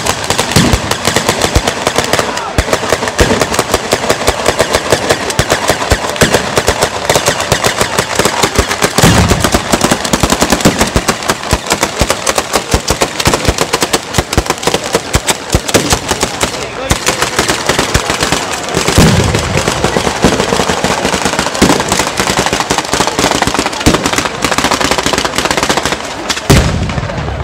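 Batteria bolognese, a ground-laid fused line of firecrackers going off in a dense, rapid string of bangs like machine-gun fire. A few heavier booms stand out about 9 and 19 seconds in, and the barrage dies away near the end.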